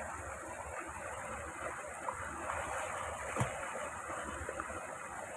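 Mountain stream water running and splashing over rocks and a small cascade, a steady rushing. One brief louder thump comes about three and a half seconds in.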